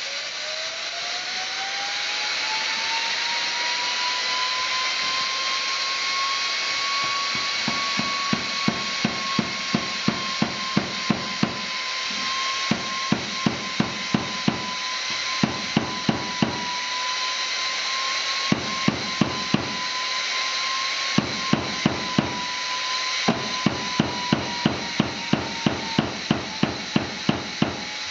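Air bearing spindle whining at about 70,000 rpm, its pitch rising over the first few seconds as it comes up to speed and then holding steady. From about eight seconds in, a mallet strikes the spindle housing in runs of sharp blows, about three a second, and the whine carries on unbroken through the impacts.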